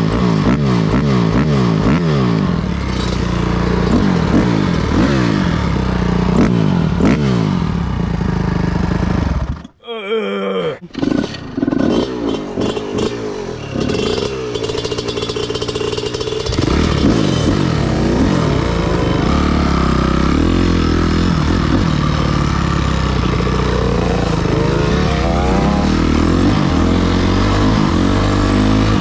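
Dirt bike engine revving up and dropping back again and again as it is ridden hard through the gears. Just before ten seconds in the sound cuts out for a moment, then comes back with a few clicks and a lower, uneven running before the engine pulls strongly again.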